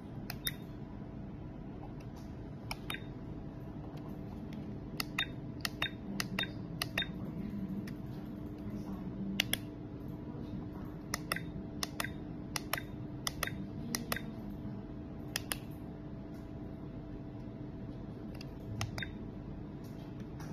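Plastic buttons on a children's instant-print camera clicking as they are pressed, a couple of dozen short clicks at irregular intervals, some in quick runs, over a steady low hum.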